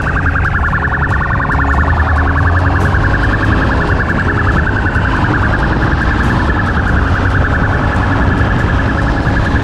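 Police motorcycle siren sounding a rapid, pulsing high-pitched warble without a break, over the low steady run of the motorcycle's engine at speed.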